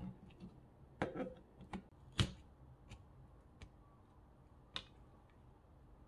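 Scattered sharp clicks and knocks of a kitchen knife and hands working a melon slice on a plastic cutting board, about six in all, the loudest about two seconds in.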